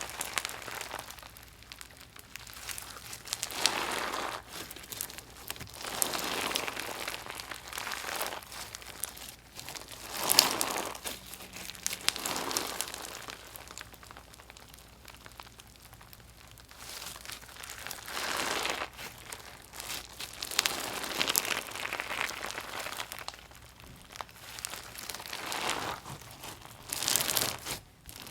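Gritty, crunchy slime being squeezed and pressed by hand, crackling and grinding in repeated strokes about every two seconds.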